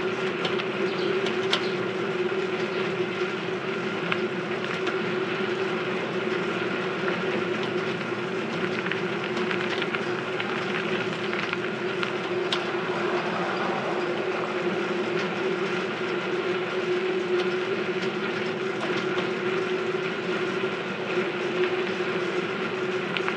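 A rented bicycle being ridden, running noisily with a steady whine and scattered clicks and rattles.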